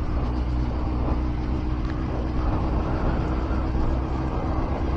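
Honda CBR900 Fireblade's inline-four engine running at a steady pace on the move, with a low rumble under a steady hum. Road and wind noise rush over it.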